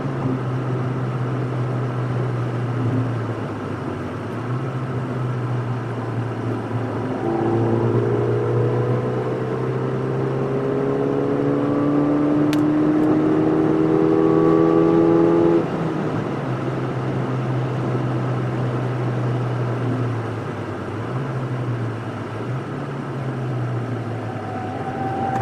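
Ford Fiesta ST Mk7's turbocharged 1.6-litre four-cylinder, heard from inside the cabin at track speed. The engine note climbs slowly under acceleration for several seconds, drops sharply about halfway through, then runs at a steadier pitch with a few small dips near the end.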